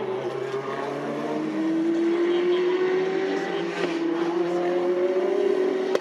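Race car engine accelerating hard, its pitch climbing steadily and growing louder. About four seconds in it dips once at an upshift, then climbs again.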